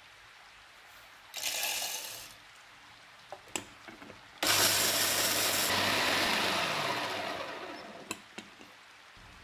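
Roasted peanuts poured into a small plastic mini-blender bowl, a few clicks as the lid goes on, then the chopper's motor running for about three seconds with the nuts grinding to crumbs before it slows and stops. Two sharp clicks near the end.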